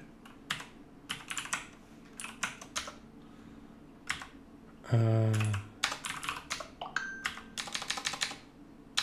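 Typing on a computer keyboard in quick bursts of keystrokes. About five seconds in, a brief low hum from a voice, falling in pitch, is the loudest sound.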